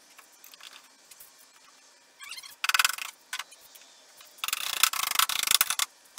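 Ratchet wrench clicking in two quick runs while the jack plate's mounting bolts are tightened to the skiff's transom: a short run about two and a half seconds in, then a longer one of about a second and a half near the end.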